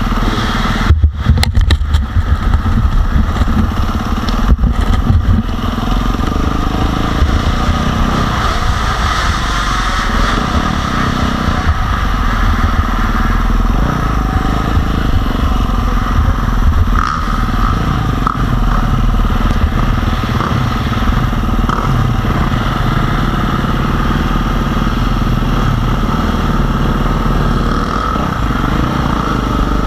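Single-cylinder four-stroke KTM 350 SX-F motocross bike running loud and continuously on the track, with the engine note rising and falling under the throttle. It is choppier in the first five seconds, with a few sharp loud peaks and brief cut-outs.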